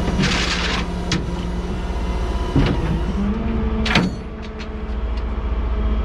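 Rollback tow truck's engine runs steadily while its winch drags a dead Combilift forklift up the steel bed. There is a short hiss near the start and a few sharp metal clanks, the loudest about four seconds in. The engine note steps up a little past halfway.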